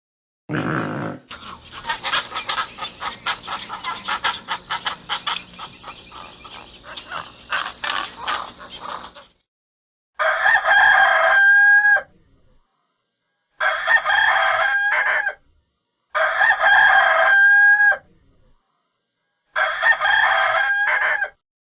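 A chicken clucking in a fast, continuous run for several seconds. Then a rooster crows four times, each crow about two seconds long and ending on a held note.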